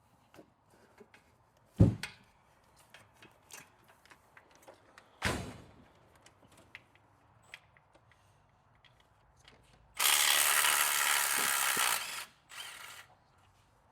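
Hand ratchet wrench clicking in short runs while undoing the transmission bolts, with two heavier knocks of metal on metal. About ten seconds in comes a loud, steady two-second burst of noise, then a shorter one.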